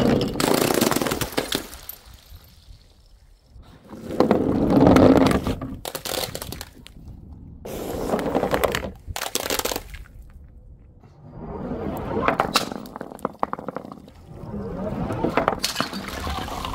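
Glass smashing again and again: about six separate crashes a few seconds apart, each a second or two of breaking and crunching glass.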